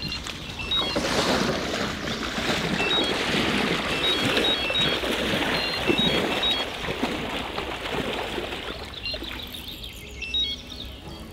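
Electronic carp bite alarm beeping in short, irregular runs of high tones as a fish takes line on a run. Under it, a steady rushing and splashing of water from wading in the shallows, fading toward the end.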